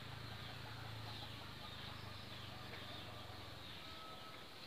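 Faint outdoor ambience of birds calling, with repeated short, high falling chirps, over a low steady hum that fades out near the end.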